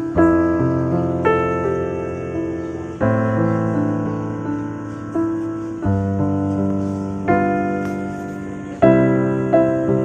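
Slow background piano music: sustained chords, each struck and left to fade before the next, about one every one to three seconds.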